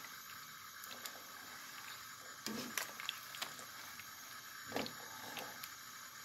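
Thick spice paste sizzling and bubbling faintly in a pot as it is fried down until the oil separates, while a silicone spatula stirs through it with scattered small clicks and scrapes.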